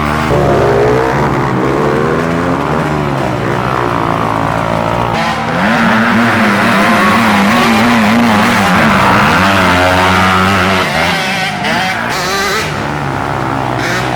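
Youth racing ATV engines revving, their pitch rising and falling unevenly, with one engine louder and revving hard from about five seconds in to about ten seconds in.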